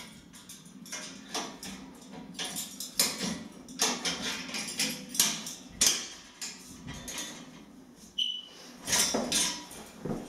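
Tubular steel adjustable trestle being handled and adjusted: irregular metal clanks, knocks and rattles, with a brief high squeak about eight seconds in.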